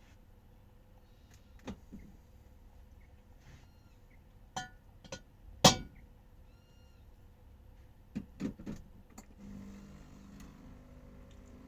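Scattered clicks and knocks, the loudest about halfway through, with two faint short beeps between them. A low steady hum starts near the end.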